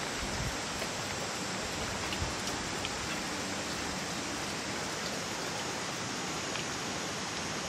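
Steady, even hiss of water noise, with a few faint light ticks.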